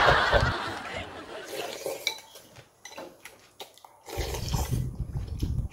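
Dishes and cutlery clinking in scattered light knocks while eating, with laughter fading out at the start and a muffled low rumble near the end.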